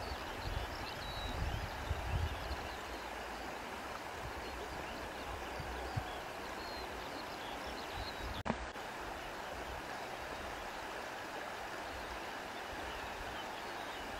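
Steady rush of flowing water, with low wind buffeting on the microphone in the first couple of seconds and a short click about eight and a half seconds in.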